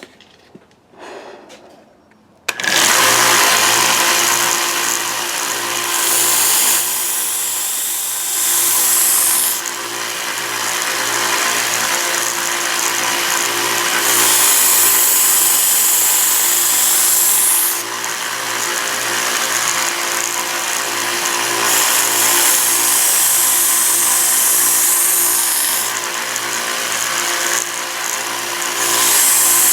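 Harbor Freight 1x30 belt sander switched on about two and a half seconds in and running steadily with a pulsing hum. A steel kitchen-knife blade is drawn across the slack part of the sanding belt in several passes, each heard as a louder grinding hiss.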